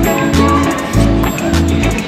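Background music with a steady beat over a repeating bass line.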